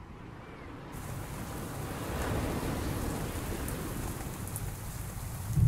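Rain falling, fading in and growing steadily louder, with scattered drop ticks. A deep rumble breaks in at the very end.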